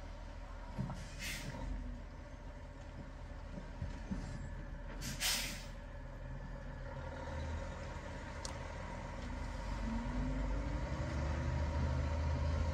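Heavy semi-truck diesel engine rumbling at low revs, with two short air-brake hisses, one about a second in and one about five seconds in. In the last few seconds the engine grows louder, its note rising and falling.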